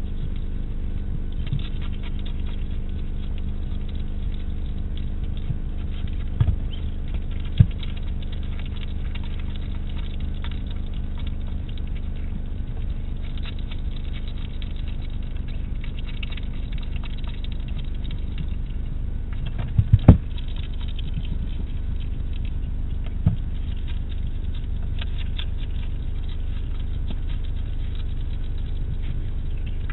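A hedgehog eating from a shallow dish: faint, continual crunching and patter, with a few sharp knocks, the loudest about twenty seconds in. A steady low hum runs underneath.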